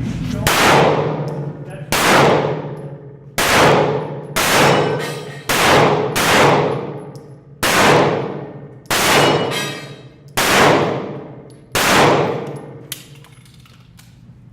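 About ten pistol shots fired one at a time at an even pace, roughly one every second and a half. Each is a sharp crack with a long ringing, echoing tail.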